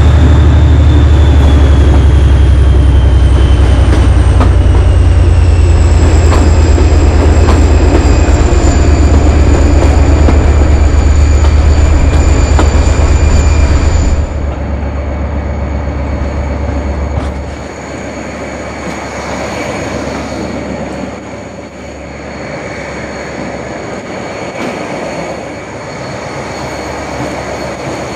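Class 57 diesel locomotive's turbocharged GM (EMD) 2,500 hp engine working hard under power, a loud deep rumble with a high whine that falls slightly in pitch. About 14 seconds in the power drops suddenly, and it eases further a few seconds later into quieter running with rail noise.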